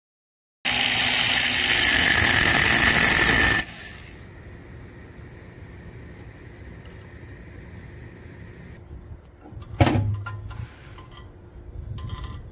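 A cordless drill running loudly for about three seconds with a steady high whine, followed by a quiet steady hiss and a sharp knock about ten seconds in.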